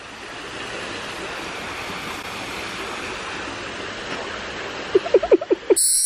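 Steady rushing noise outdoors, with a few short pitched sounds about five seconds in. Just before the end it cuts off and a bright chiming sound effect starts.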